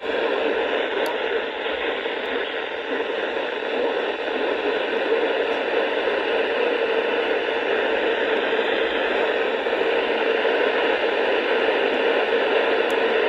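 Steady static hiss from a weather radio receiver tuned to a NOAA Weather Radio station, with no voice or alert tones in it.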